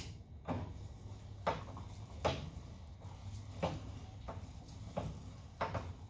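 Hand-cranked steel door band roller being turned as it bends a 1/4-inch thick flat bar: a handful of short, sharp metallic clicks and knocks at irregular intervals, over a steady low hum.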